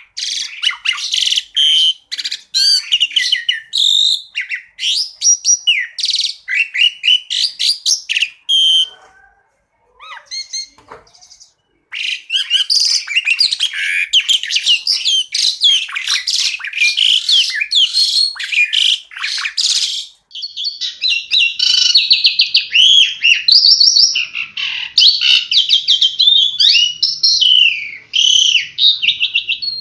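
Songbird song from a birdsong training recording: rapid strings of sharp chirps and quick whistled phrases, with a pause of a couple of seconds about a third of the way in before the song resumes.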